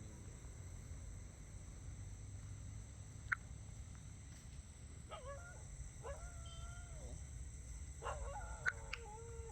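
A few drawn-out animal calls over a low steady hum, with a single sharp click about three seconds in.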